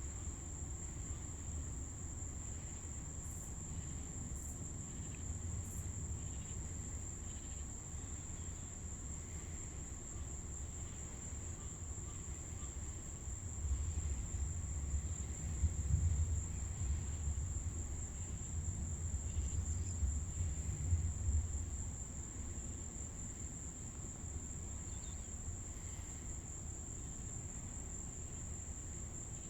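Insects, crickets, trilling steadily in one high, unbroken tone. About halfway through, a low rumble swells for several seconds and then fades back.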